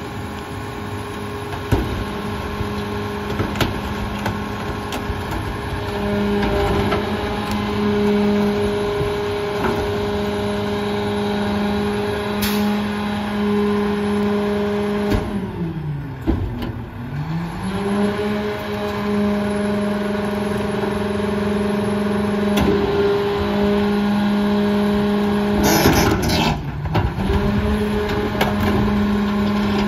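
Heil 5000 rear-loader garbage truck running with its engine held at a raised, steady speed while the packer hydraulics cycle, with scattered knocks as bulky items go into the hopper. About halfway through, the engine speed falls and climbs back up. Near the end there is a loud, noisy burst lasting about a second.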